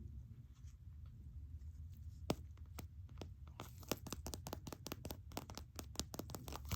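Faint clicks and crinkles of small plastic toy packaging being handled and tapped. A few scattered clicks at first, then a quick run of taps through the last three seconds, over a low steady hum.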